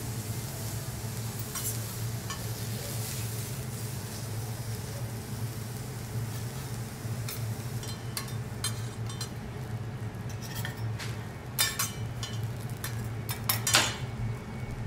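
Food sizzling on a teppanyaki hot plate, the hiss fading after about halfway. In the second half come sharp metal clinks and taps, the loudest two near the end, from the chef's spatulas on the griddle, over a steady low hum.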